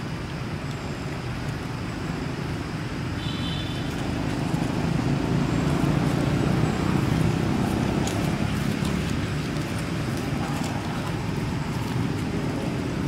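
Steady low rumble of outdoor background noise, swelling in the middle and easing off again.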